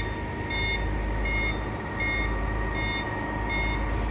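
Truck reversing alarm beeping at an even pace, about four beeps every three seconds, over a truck engine running steadily.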